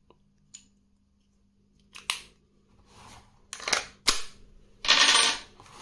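Handling clicks and clacks from an Umarex Glock 17 Gen 5 CO2 BB pistol and its magazine: a few separate sharp clicks through the middle, then a louder half-second burst of noise near the end.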